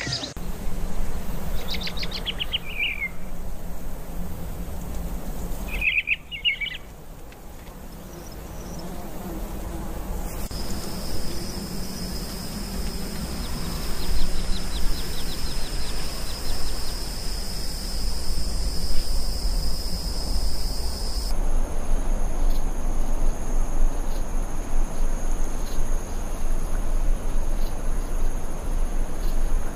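A few short, falling bird chirps in the first seconds and again briefly a few seconds later. Then a steady high insect trill, crickets or cicadas, that shifts to a higher buzz about two-thirds of the way through, over a low outdoor background hum.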